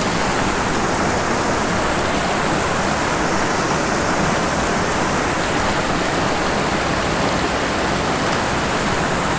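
Rushing water of a small rocky stream tumbling through riffles and cascades, a steady, even rush.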